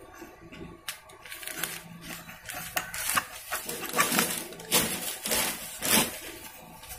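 Metal clicks and scrapes as the cap on a Royal Enfield Bullet 350 front fork tube is pressed down by hand against the fork spring and turned into its threads. The clicks come irregularly and grow louder in the second half.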